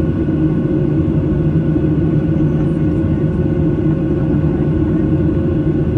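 Cabin noise of a Boeing 737-800 in flight, heard from a seat by the wing: the steady drone of its CFM56-7B turbofans and rushing air, with a few faint steady tones over it.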